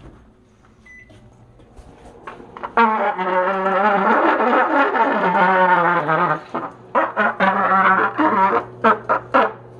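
A brassy, trombone-like tune, faint at first, then loud from about three seconds in with long bending notes, breaking into short choppy notes in the second half.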